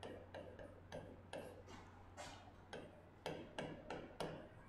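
Stylus tapping and scraping on the glass of an interactive display during handwriting: faint irregular clicks, about two or three a second, some drawn out into short scratches, over a steady low electrical hum.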